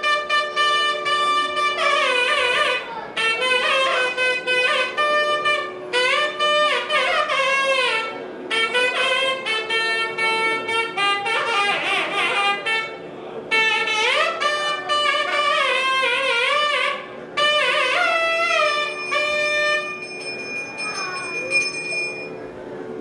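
Indian devotional instrumental music: an ornamented melody on a wind instrument, sliding and bending between notes over a steady drone. It comes in phrases with short breaks and ends on a long held note near the end.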